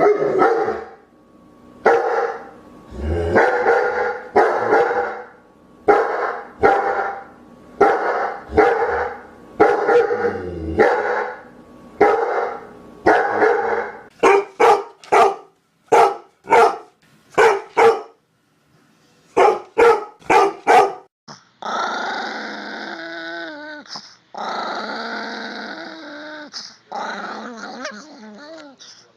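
A dog barking over and over, about one bark a second, then quicker sharp barks with short gaps between them. From about two-thirds of the way through, long unbroken growling.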